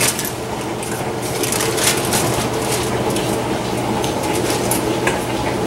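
A metal cookie sheet loaded with foil-wrapped sweet potatoes being slid onto an oven rack, with a few short scrapes and clinks of metal on metal. A steady hum runs underneath.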